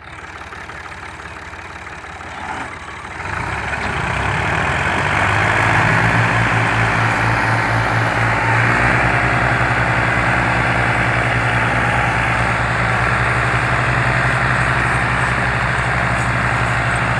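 Diesel engines of two tractors, an Al Ghazi and a Massey Ferguson 240, working under load against a heavily loaded sugarcane trolley. The engine sound builds over the first few seconds, then holds loud and steady with an even pulsing beat.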